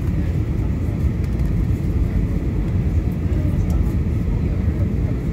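Jet airliner cabin noise heard from a window seat during descent: a steady low rumble of engines and rushing air.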